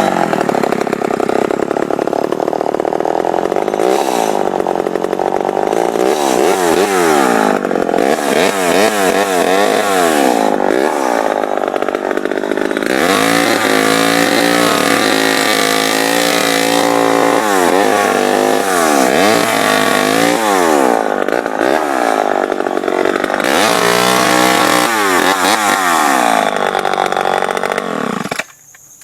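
Homelite Super XL two-stroke chainsaw being revved again and again, its pitch rising and falling with each blip of the throttle. It cuts off suddenly near the end.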